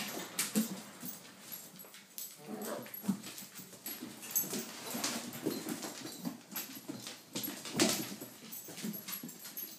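Airedale terrier puppies whimpering and yipping in a busy string of short sounds as they crowd around an adult Airedale, with scattered clicks and knocks; the loudest cries come about half a second in, around three seconds, at five seconds and just before eight seconds.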